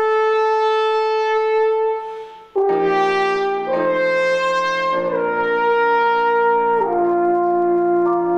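French horn with piano accompaniment. The horn holds a long, sustained note that fades away, then after a brief break a new phrase enters over piano chords, the horn's melody stepping downward note by note.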